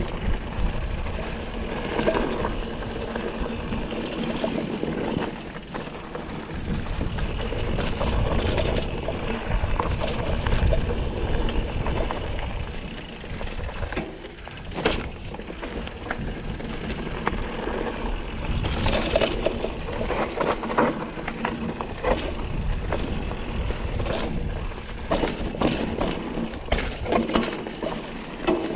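Mountain bike descending a rocky dirt trail: tyres crunching over rock and dirt, with the frame and chain rattling and clattering over bumps, under a low rumble. The clatter comes in busier rough patches, with quieter stretches between.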